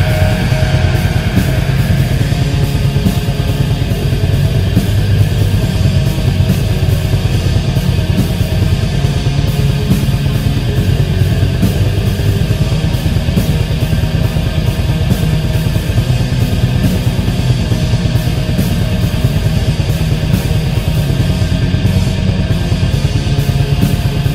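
Black metal: loud distorted guitars over fast, dense drumming, running without a break.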